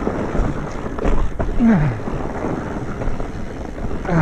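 Wind rushing over the microphone and mountain-bike tyres rolling on a dirt trail, with a short falling vocal sound about one and a half seconds in.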